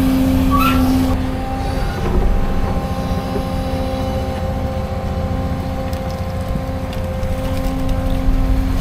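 CAT 335 excavator's diesel engine and hydraulics working while digging, heard from inside the cab. A steady low rumble runs under a humming whine that eases off about two seconds in and comes back near the end, with a short rising squeal just after the start.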